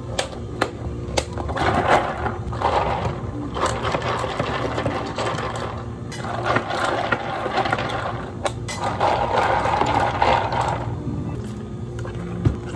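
Sounds of café drink-making: a few sharp clicks, then four noisy rushing bursts of about two seconds each with short pauses between them, over a steady low hum.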